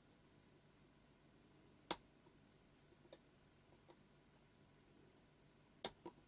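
A few small sharp clicks of metal dentist tools against the lens barrel while prying out a tight plastic spacer, over near silence. The loudest click is about two seconds in, with two more in quick succession near the end.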